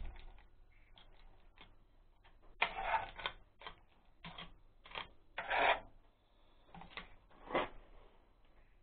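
Irregular metal clinks and scrapes of a wrench and bolts being worked on the grease-packed gearbox housing of an Oka walk-behind tractor during reassembly. There are a handful of short clatters, the loudest about three seconds and five and a half seconds in.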